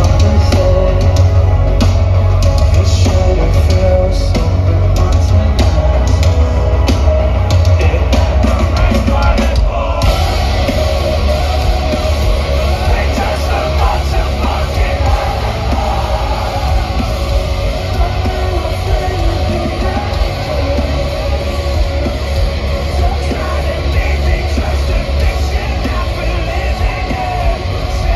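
Live metalcore band playing loud and heavy: distorted guitars, bass and pounding drums, with singing. The sound thickens into a denser wall about a third of the way in.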